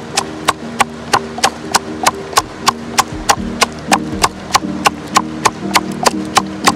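Wooden stick pounding red chillies and seeds in a stainless steel tumbler, making sharp, evenly paced knocks about three to four times a second.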